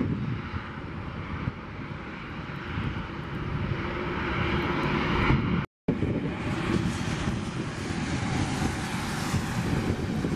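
Boeing 737 jet engines on landing and rollout: a steady jet rumble and roar that swells over the first half. The sound cuts out for a moment about halfway.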